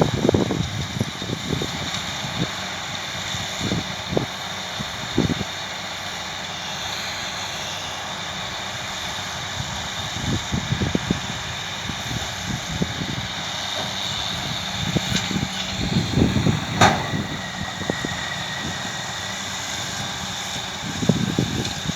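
New Holland T6.180 tractor engine running steadily while baling hay with a round baler, with irregular low rumbles and a single sharp click about three-quarters of the way through.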